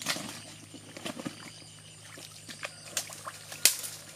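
Sloshing and splashing of a man wading through shallow, muddy water, loudest at the start, with scattered small clicks and one sharp click a little before the end.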